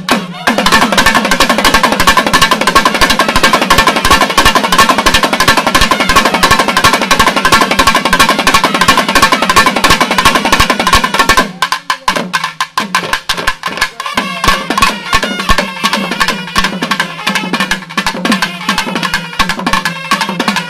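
South Indian temple ensemble music: a thavil drummed in fast, dense strokes under a nadaswaram's held high notes and a steady low drone. About eleven seconds in the music thins and the drumming goes on more sparsely.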